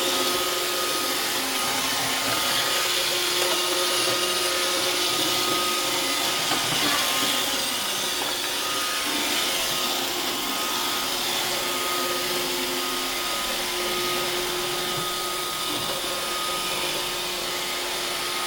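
iRobot Roomba robot vacuum running while it cleans: a steady whir of motor and brushes with a constant hum underneath.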